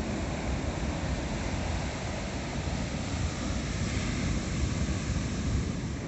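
Wind buffeting the microphone with a fluttering low rumble, over the steady hiss of surf breaking on a sandy beach.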